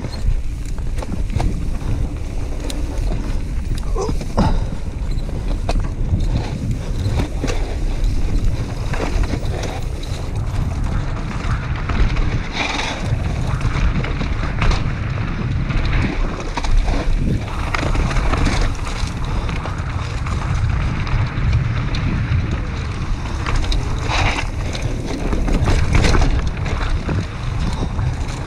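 Mountain bike riding fast down a dirt singletrack: wind rushing over the action camera's microphone, knobby tyres rolling over dirt, and the bike clattering and rattling over bumps and roots.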